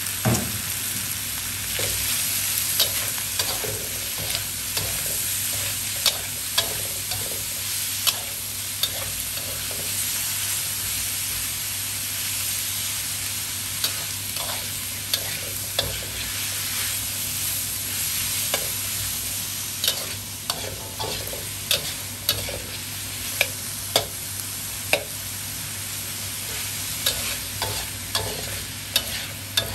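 Pork belly slices, pineapple and vegetables sizzling in a hot wok while a metal spatula stirs and tosses them. A steady frying hiss is broken by frequent sharp scrapes and clinks of the spatula against the pan, coming more often in the second half.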